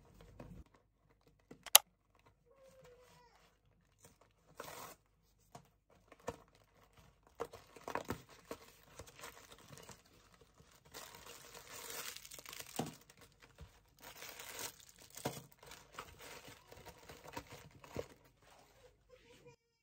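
Cardboard ice-bar box being opened by hand: flaps pulled back and packaging crinkling and rustling as bars are taken out, with scattered small clicks and taps. A single sharp click comes about two seconds in.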